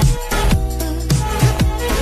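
Electronic intro music with a steady, heavy kick-drum beat over a constant bass.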